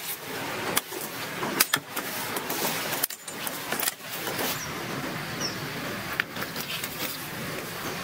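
Sharp knocks and clacks of freshly cut wooden poles being handled and shouldered, a handful of separate strikes over a steady background hiss.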